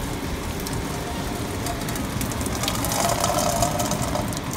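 Hot pasta water and spaghetti poured from a pot through a stainless-steel colander in a metal sink, making a steady splashing gush.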